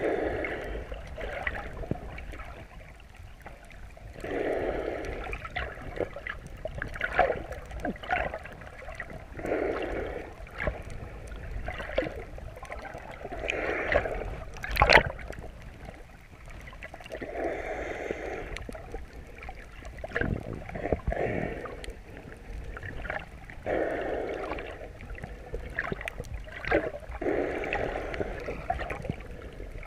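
Muffled water noise heard through a chest-mounted GoPro's waterproof housing while swimming, rising in bursts every three to four seconds, with one sharp knock about halfway through.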